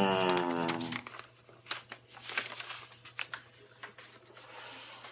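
Sheets of paper rustling and crinkling as drawings are handled, in irregular crackles, after a drawn-out voice sound in the first second.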